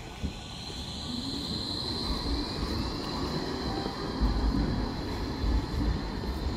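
A rail vehicle running past, its wheels squealing in a steady high whine over a low rumble that grows louder about four seconds in.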